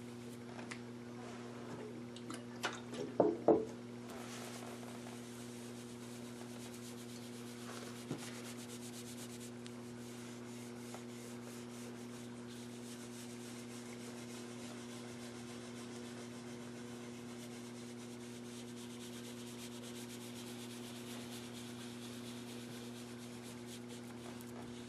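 Applicator pad rubbing hard wax (deluxing compound) over a lacquered wood cabinet, a soft steady scrubbing. A few sharp knocks about three seconds in are the loudest sounds, and a steady low hum runs underneath.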